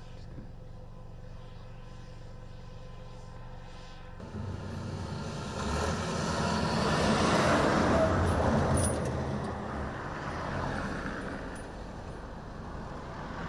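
Faint steady hum, then a heavy truck hauling an armoured vehicle on a low-loader drives by on the road. Its engine and tyre noise swells to a peak in the middle and fades away again.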